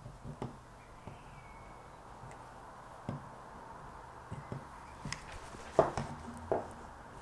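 Handling noises while working with a hot glue gun at a wooden table: scattered soft clicks and taps, then a few sharper knocks about six seconds in as the glue gun is set down on the tabletop.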